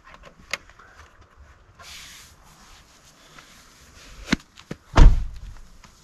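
Scattered light clicks and knocks, a brief hiss, and one heavy thump about five seconds in.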